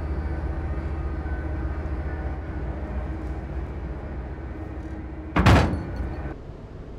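Steady low drone of a boat engine running, with one loud thud about five and a half seconds in; the drone drops away soon after.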